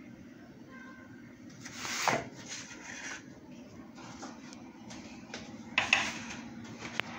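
Kitchen handling noises: a few short knocks and clatters of cookware being moved, the loudest about two seconds in, over a steady low hum.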